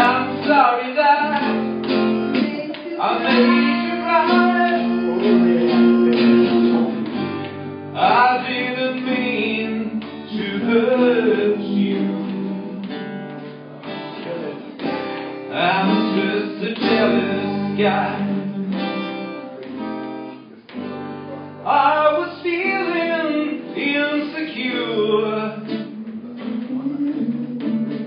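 Live acoustic guitar music, strummed and picked, with a voice carrying the melody over it.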